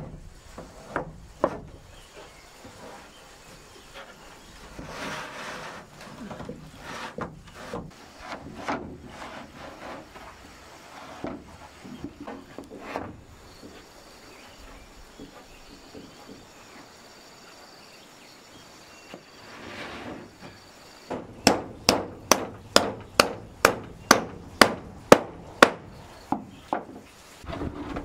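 Hammer nailing corrugated roofing sheets down onto wooden rafters: a quick, even run of sharp strikes, about two to three a second, through the last six seconds or so. Before it come scattered knocks and rubbing as the sheets are shifted into place on the frame.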